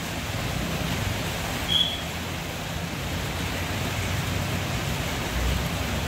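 Steady hiss of rain on a wet road with the low hum of a tour bus engine as the bus approaches. A short high-pitched tone sounds about two seconds in.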